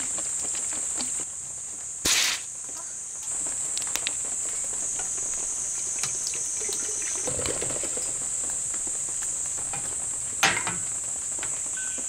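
Makgeolli poured from a plastic bottle into an aluminium kettle, with splashing and small ticks, over a steady high chirring of insects. There is a short loud hiss about two seconds in and a sharp knock near the end.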